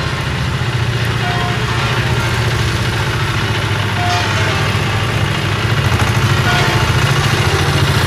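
Vintage tractor engine running with a steady low throb, growing louder about three quarters of the way through as the tractor approaches.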